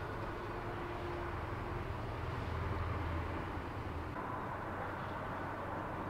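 Fish being let go by hand in shallow pond water, the hand splashing briefly at the surface about three to four seconds in. Under it runs a steady low rumble, which eases about four seconds in.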